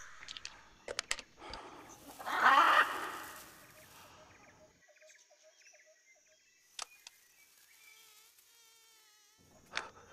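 Forest ambience with insects and faint, wavering chirping calls. There is a loud harsh burst about two and a half seconds in, and a few sharp clicks.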